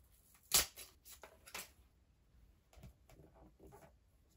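Screen-protector cleaning-kit wrappers and wipes handled by hand: a sharp crinkle about half a second in, a few more crackles just after, then softer rustling near the end.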